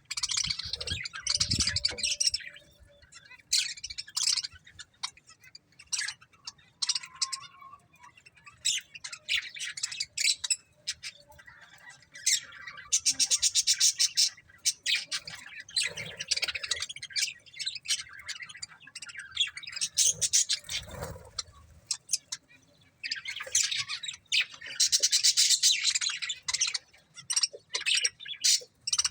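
Budgerigars chirping and chattering in bursts with short pauses, including a couple of longer stretches of rapid, squawky warbling. A couple of soft low thuds come through among the calls.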